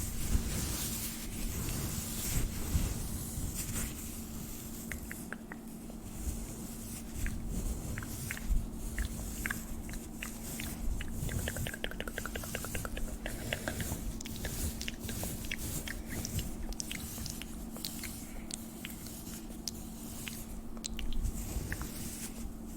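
Close-miked ASMR mouth sounds: wet clicks and smacks, irregular, with a fast run of rapid clicks around the middle. A faint steady hum runs beneath.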